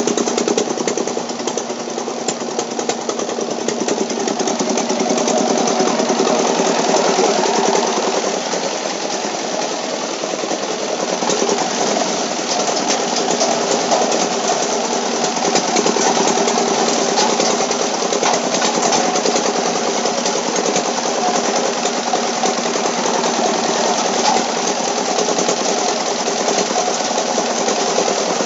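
Gibrik, a plastic-sack washing machine, running steadily with a fast, even rattle over the hum of its drive.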